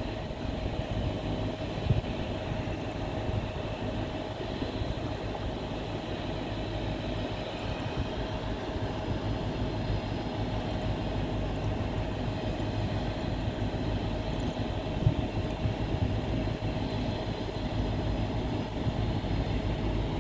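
A steady machine drone, with a low rumble and a constant hum, like an engine running without change; a couple of faint knocks stand out briefly.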